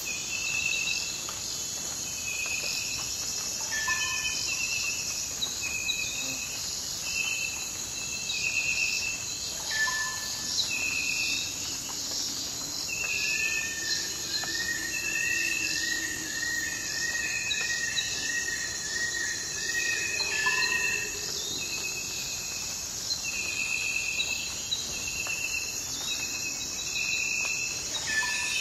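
Tropical rainforest ambience after rain: a steady high-pitched insect chorus, with short chirping calls repeating about once a second. Near the middle, a run of about a dozen evenly spaced notes joins in, and a lower two-note call sounds a few times.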